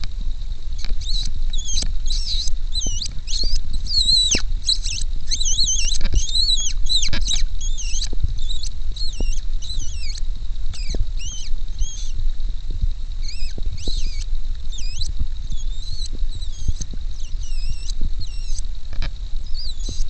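Rapid, high-pitched mouse-like squeaks: many short squeaks that bend up and down in pitch, in quick strings with brief pauses, typical of a mouse-squeak call used to lure a fox. A low rumble runs underneath.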